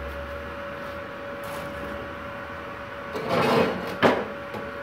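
Steady hum of a switched-on MIG welding machine. About three seconds in, its cables are handled with a short rustle, followed by a sharp knock just after.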